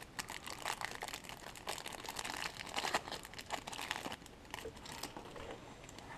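Cellophane wrapper of a baseball card pack crinkling as it is torn open and pulled off the cards, the crackling thinning out about four seconds in.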